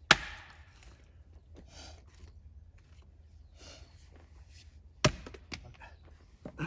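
Firewood being broken into shorter lengths to fit the fire: two sharp wooden cracks about five seconds apart, with lighter knocks of wood between.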